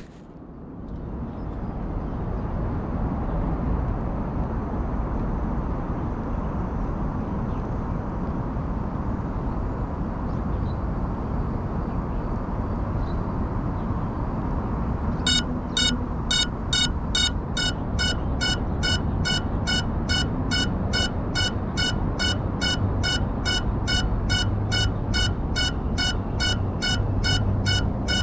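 GEPRC Cinelog 35 FPV drone lying downed in a bush over a steady outdoor rumble. About halfway through, its lost-model beeper starts, sounding an even, shrill beep two to three times a second so the drone can be found.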